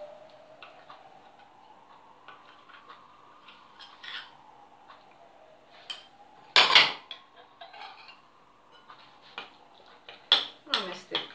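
Metal spoon clinking against a bowl while a thick walnut, cocoa and honey filling is worked, with faint scattered ticks at first. There is one louder knock about six and a half seconds in, then a quick run of clinks from about ten seconds on as the stirring starts.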